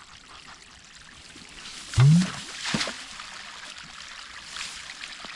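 Irrigation water running and trickling as siphon tubes are started from a ditch, a steady watery hiss. About two seconds in comes a short, low, rising grunt, followed by a smaller splash or gurgle.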